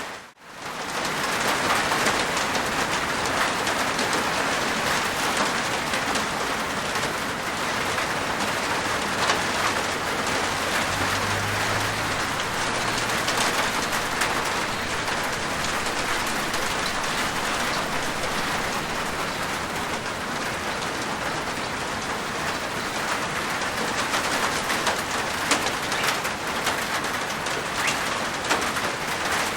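Rain falling steadily on a rooftop, an even hiss with scattered drop ticks; the sound briefly drops out just after the start, then comes straight back.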